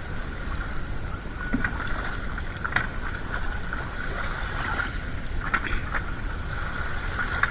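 Wet fish being picked through and sorted by hand on a plastic tarp: a few scattered rustles and taps, over a steady low rumble and a faint steady high whine.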